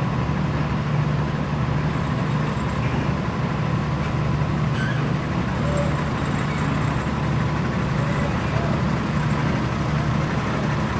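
Heavy diesel engine running steadily, a constant low drone that does not rise or fall, from the crane or the lowbed trailer's truck on the site.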